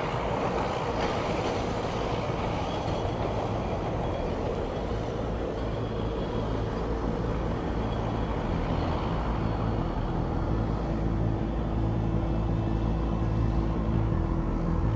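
A small rail bus running along the track, its engine giving a steady drone, with a steady hum joining about nine seconds in.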